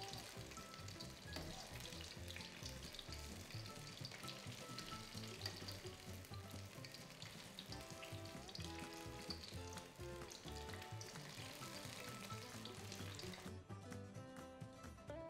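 Battered vegetables deep-frying in hot peanut oil, a steady sizzle and crackle, over soft background music. The frying stops near the end, leaving only the music.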